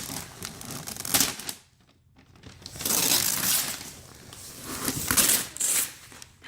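Gift wrapping paper crinkling and tearing in bursts as a present is unwrapped, with a brief pause about two seconds in.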